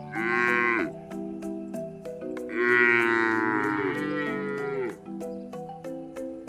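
Cow mooing twice: a short moo at the start, then a longer one from about two and a half seconds in that drops in pitch as it ends. Background music with a light ticking beat plays under it.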